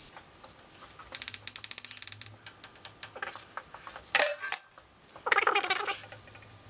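A stiff brush scrubbing dried crud off the lathe's metal: a fast run of rattling clicks about a second in, scattered ticks, then a scratchy scrubbing stroke near the end.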